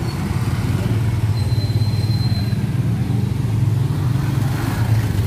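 Motor scooter engines idling and pulling away slowly in close street traffic, a steady low hum, with a thin high whine for about a second early on.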